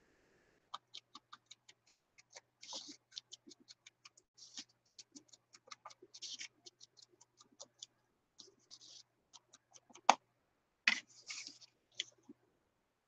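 Paper being handled and a torn paper edge dabbed and rubbed with an ink pad: a run of small ticks and brief scratchy rustles, with a sharper knock about ten seconds in and another about a second later.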